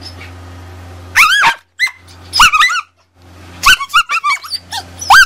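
A dog making short, high whining yowls that rise and fall in pitch, in three bouts, with a low steady rumble in the pauses between them.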